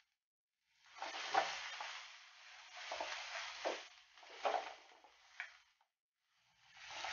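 Chopped onion and green chillies sizzling in hot oil in a kadai while a wooden spatula stirs them, with several sharp scrapes of the spatula against the pan. The sizzle stops briefly about six seconds in and comes back near the end.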